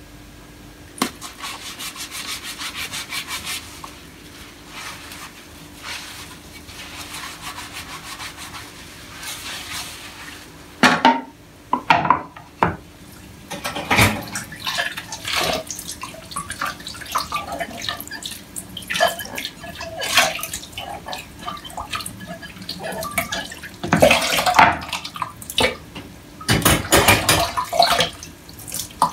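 Water from a kitchen tap running and splashing in a sink while a glass bowl and a wooden utensil are washed by hand. Several sharp knocks and splashes come in the second half.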